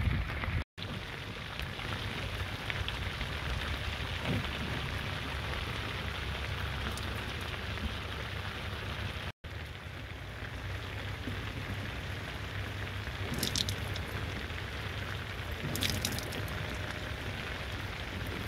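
Heavy rain pouring on an open, roofless boat: a steady hiss of rain with scattered drips and patters over a low rumble. The sound cuts out for an instant twice.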